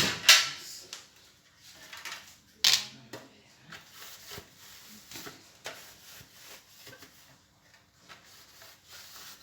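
Sharp knocks and clicks of household items being handled and set down: two louder knocks, one right at the start and one a little under three seconds in, then a run of lighter taps and clatter.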